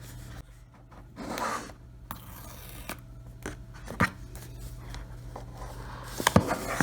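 Cardboard iPhone box being opened by hand: a scraping rub of card on card a little over a second in, then a few light clicks and taps as the packaging is handled, with more of them near the end.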